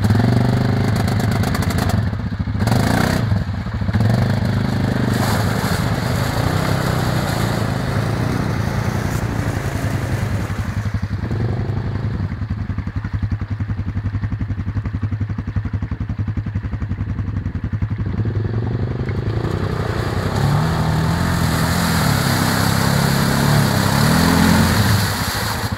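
ATV engine running hard under load as the quad churns through deep mud and water, its wheels spinning and throwing mud. Near the end the revs rise and fall repeatedly.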